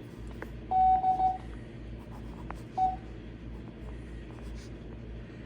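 Morse code practice tones from an ARRL W1AW 5-words-a-minute code practice recording. There is a quick cluster of beeps on one steady pitch about a second in, then a long gap, then a single short beep near three seconds, over a faint low hum with a couple of soft clicks.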